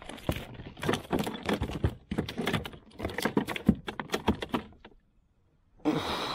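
Landed flathead thrashing in a landing net on a plastic kayak deck: a rapid, irregular clatter of knocks and taps from the net frame and fish against the hull, stopping about five seconds in. A short rush of noise follows near the end.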